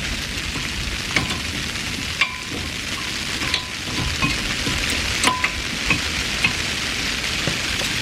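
Scattered light metallic clinks and taps of tools and brake parts as the front brake is reassembled, some ringing briefly, over a steady hiss.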